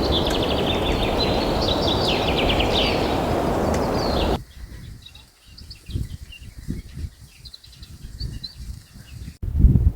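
Outdoor ambience with birds chirping in rapid high trills over a steady rushing noise; about four seconds in it cuts to a much quieter stretch with a few faint chirps and scattered low knocks.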